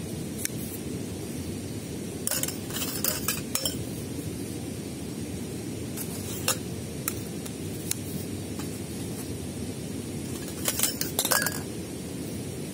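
Hollow pole sections clinking and knocking against each other as they are handled and fitted together: a quick run of clinks about two to four seconds in, a few single clicks, and another run about eleven seconds in.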